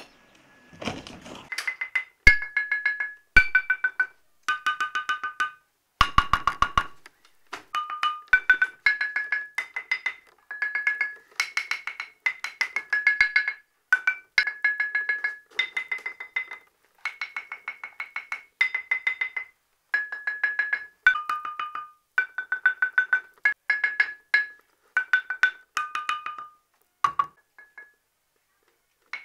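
Stone lithophone (đàn đá) of flat stream stones struck with a small wooden mallet. Quick repeated strokes ring at a few clear, bright pitches, and the pitch shifts from one run of strokes to the next to pick out a melody.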